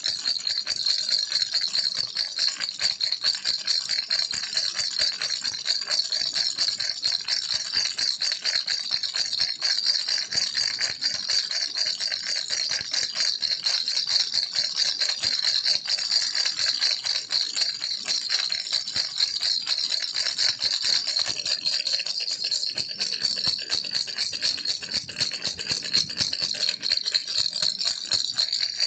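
Baby rattle toy shaken rapidly and without pause: a dense, continuous stream of fast clicking, bright and high-pitched.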